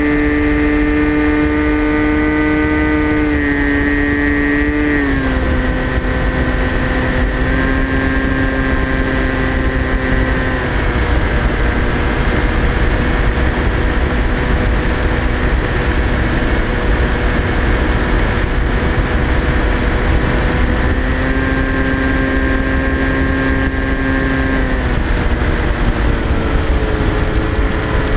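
Electric motor and propeller of a TBS Caipirinha flying wing whining steadily in flight over a constant wind rush, heard from the onboard camera. The pitch steps down twice in the first five seconds as the throttle comes back, rises for a few seconds about two-thirds of the way in, then drops again.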